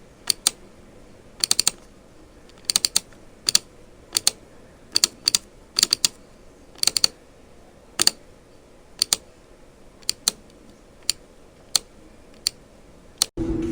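Computer mouse button clicks, single clicks and quick double clicks at irregular intervals of roughly half a second to a second, over a faint steady hiss. Just before the end a louder low hum comes in.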